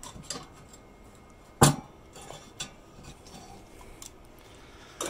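Metal clanks and clinks from the grill grate of a Big Green Egg ceramic charcoal smoker being handled: one sharp clank about a second and a half in, with a few lighter clinks around it and a short clatter at the end.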